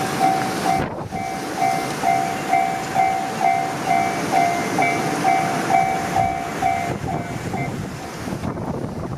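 Japanese railway level-crossing warning bell ringing in a steady repeating ding, about two strikes a second, over the loud rumble and rail clatter of a passing JR Tokaido Line train. The bell fades out near the end.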